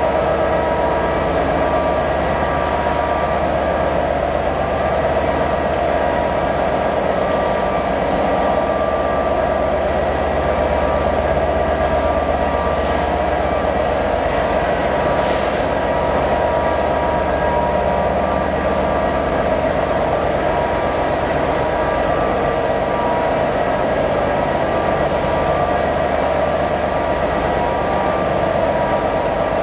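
Class 67 diesel-electric locomotive, with its EMD V12 two-stroke engine, idling while standing at the platform: a steady engine hum with a constant high whine over it. A few short hisses come in the first half.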